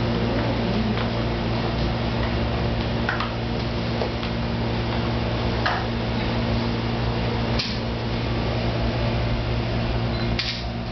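Steady low mechanical hum of room air conditioning, with a few faint clicks and rustles.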